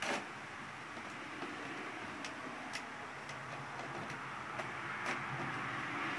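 Homemade dog toy of empty bottles threaded on an iron bar, clicking and knocking at irregular intervals as it is played with. A sharper knock comes at the start, over a steady background hiss.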